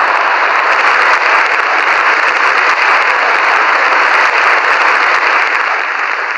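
Large theatre audience applauding: a dense, steady clatter of many hands clapping that begins to die down near the end.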